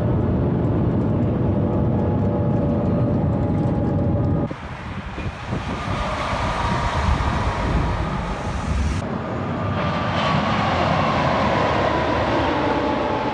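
Shanghai Maglev high-speed train: a steady low rumble heard inside the cabin at speed, changing abruptly about four and a half seconds in to the train passing by outside on its elevated guideway. From about nine seconds in, a train runs past at a distance with a faint, slowly falling whine.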